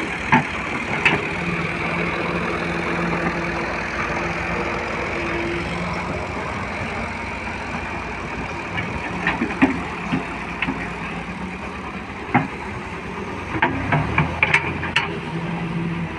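Excavator's diesel engine running steadily at idle, with a few short sharp knocks, most of them near the end.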